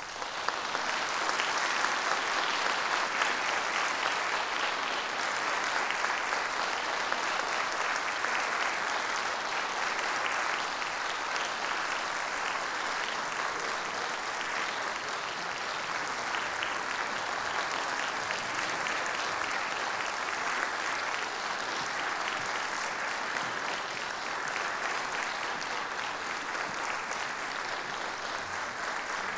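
Concert audience applauding, breaking out all at once and holding steady, easing off slightly toward the end.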